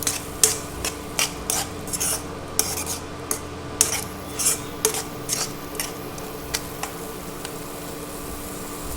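A spoon scraping and knocking against a kadhai as ginger-garlic paste is stirred into frying masala, in quick irregular strokes that stop about seven seconds in.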